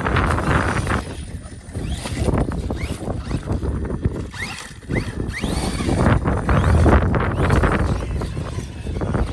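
ARRMA Fireteam RC car driving, its brushless electric motor whining up in pitch in several short bursts as it accelerates, mixed with tyre and ground noise and wind on the microphone.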